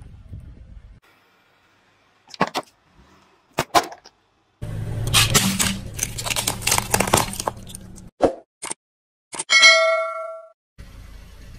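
Car tyre rolling slowly over a plate and candies on asphalt, crushing them: a few sharp cracks, then a few seconds of dense crackling over the car's low rumble. Near the end a loud bell ding rings out and fades, the chime of a subscribe-button animation.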